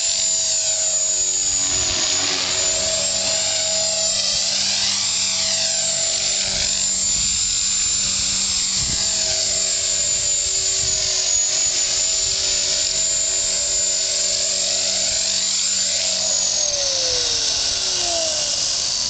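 HK 450 electric RC helicopter's motor and rotor running with a steady high-pitched whine, the sound wavering and swirling as the helicopter moves about. About three quarters of the way through, the tones glide down as the rotor spools down.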